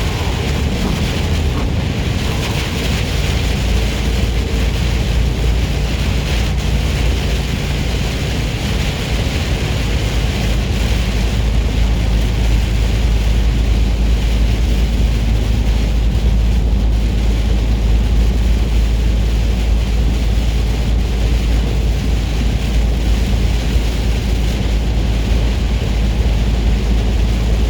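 Steady drone inside a semi-truck cab at highway speed: the truck's diesel engine running with a low rumble, under a constant hiss of tyres on the rain-soaked road.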